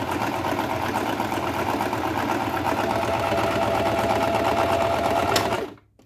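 Singer 1507 sewing machine running steadily at speed, sewing a wide zigzag stitch with its rapid, even needle rhythm, then stopping abruptly near the end.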